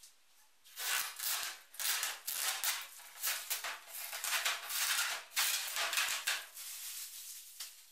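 Protective plastic film being peeled off a twin-wall plastic sheet: a run of crackling, rustling tears with sharp clicks, starting about a second in and stopping just before the end.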